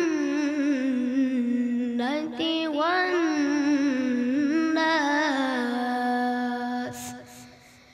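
A young boy reciting the Quran in melodic tilawat style into a microphone, holding long ornamented notes with a wavering, gliding pitch. His voice fades out about seven seconds in.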